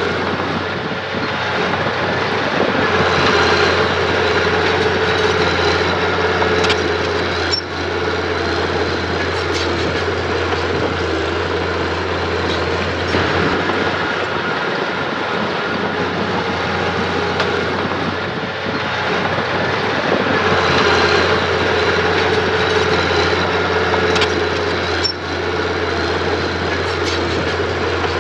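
Diesel engine of earth-moving machinery running under load with a steady low hum, swelling louder twice. A couple of short metallic knocks come through.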